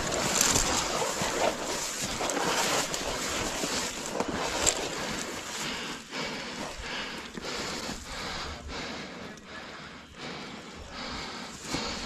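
Rustling and swishing of tall grass and leafy undergrowth brushing against clothing and a head-mounted camera as a person pushes through. About halfway through it thins out into a string of short footfalls in the grass.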